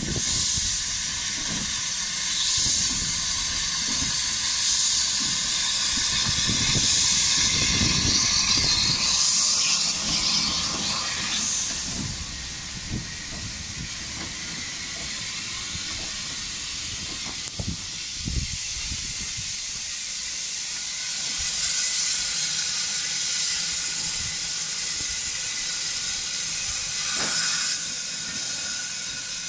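Steam locomotive hissing loudly, the hiss swelling about every two seconds over a low rumble for the first twelve seconds or so, then easing to a quieter, steadier hiss.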